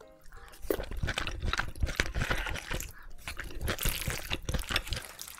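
Close-miked eating of black bean noodles (jjajangmyeon): chewing and slurping with many quick, irregular wet clicks and smacks from the mouth.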